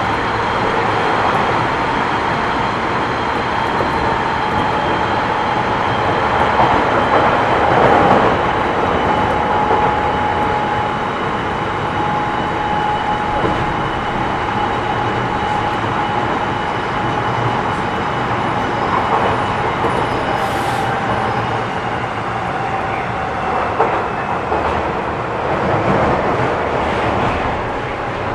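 Odakyu 1000 series electric train heard from inside the car while running between stations: a constant rumble of wheels on rail, with the thin whine of its VVVF inverter and motors that drops slightly in pitch through the middle of the stretch.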